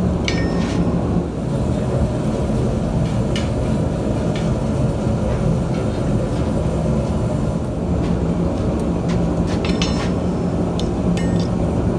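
A steady low rumbling roar with a few faint light metallic clinks scattered through it.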